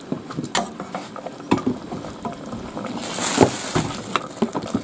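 Food cooking in a wok: scattered knocks and clinks of utensils against the pan, with a louder hissing sizzle starting about three seconds in.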